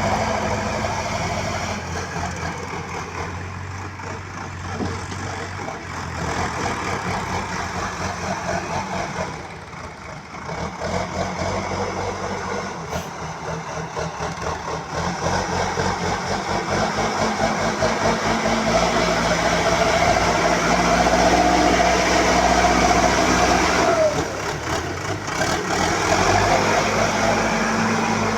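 Diesel engine of a BULL HD 76 backhoe loader running, working harder and louder from about halfway through, with a steady whine over it that stops about 24 s in before the engine eases back.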